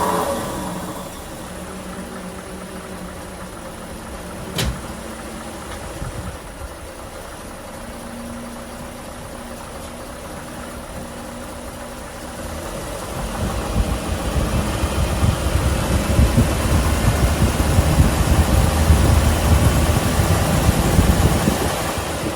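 1957 Mercury 368 V8 engine, which has a knock traced to the #7 cylinder, running steadily at idle, with one sharp click about four seconds in. From about halfway through it runs louder, then eases off near the end.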